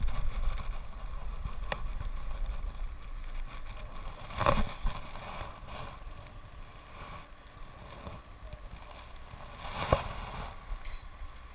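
A bicycle rolling on a wet road: steady tyre hiss with wind rumbling on the microphone, and two short knocks, one about four and a half seconds in and one near ten seconds.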